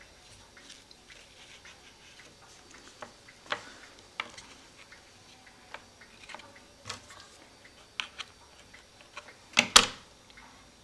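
Irregular small clicks and taps of paper and wood being handled as the freshly glued bellows paper is folded closed over the wooden sides of a cuckoo clock bellows, with a sharper double knock near the end.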